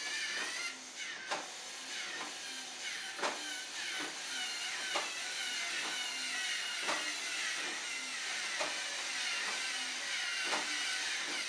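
LEGO Mindstorms electric motors whirring with a wavering whine as the clock's seven-segment flaps rotate to change the digits. A sharp plastic click comes about every second and a half to two seconds as the segments turn.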